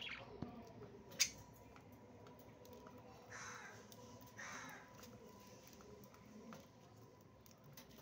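Budgerigars in a cage giving two short, scratchy calls a little past the middle, among scattered small clicks, with one sharp click about a second in.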